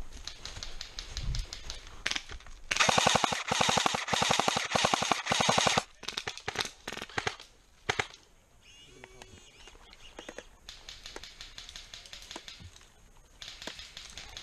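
Airsoft guns firing rapid full-auto bursts. A close, loud stretch of several bursts runs for about three seconds, starting near three seconds in, with fainter, more distant rapid fire near the start and near the end.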